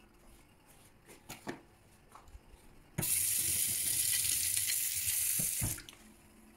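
Kitchen tap turned on and running into a stainless-steel sink for about three seconds, starting suddenly partway through and shut off near the end, with a few light knocks before it.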